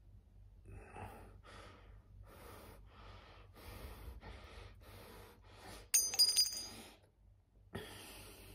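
A man's short, breathy huffs, about two a second, then a sharp metallic clink with a bright ring near the middle, followed by one more breath.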